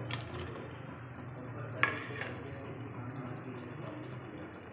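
Cubed raw potatoes tipped into a metal pot of chicken curry, making a short clatter about two seconds in over a steady low hum.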